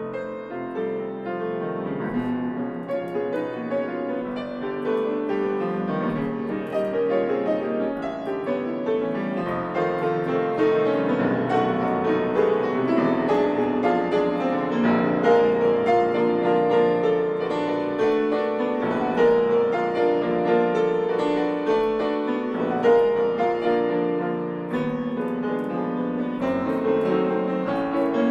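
Solo grand piano playing classical music: a dense, many-voiced passage that grows louder over the first ten seconds or so and then stays full.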